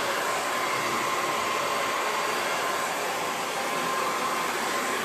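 Hand-held hair dryer running steadily, a constant rush of air with a faint steady whine, as it blow-dries hair straight.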